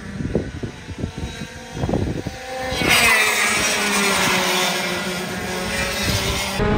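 Racing go-kart engines: after a few uneven seconds, karts pass close by about three seconds in, and the engine note rises sharply and then slowly falls in pitch as they go past and away.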